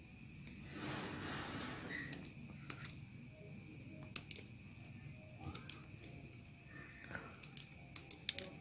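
Steel scissors snipping small pieces of leather: faint, sharp snips at an irregular pace, trimming the wrinkled excess off a folded leather edge, with a soft rustle of the leather being handled about a second in.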